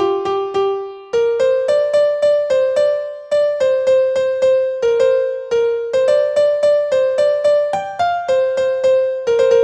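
Background music: a simple melody of evenly spaced notes, about three a second.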